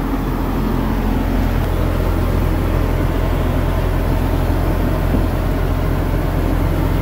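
Steady low rumble of a running engine, heard up close beside a semi-truck's wheel.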